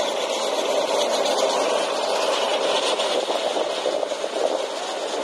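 Heavy road-paving machinery running steadily: the diesel engine of a Vögele road paver, with a continuous dense machine noise and no distinct knocks.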